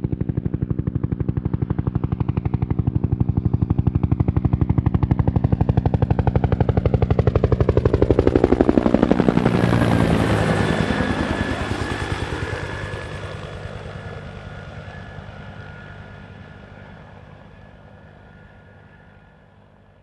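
Bell 212 helicopter approaching and passing overhead: the rapid beat of its two-bladed main rotor grows louder to a peak about ten seconds in. The pitch then drops as it passes, and it fades steadily away, with a steady whine showing on the departing side.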